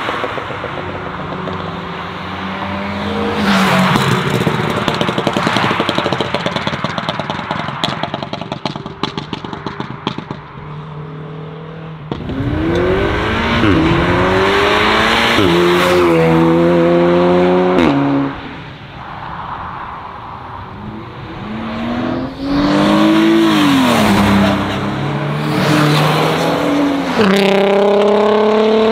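Tuned cars, among them a Volkswagen Scirocco, an Audi S3 and a Mk5 Golf R32 with its 3.2 VR6, accelerating hard away one after another, engines revving up through the gears with the pitch climbing and dropping at each upshift. A run of rapid crackles comes about eight seconds in.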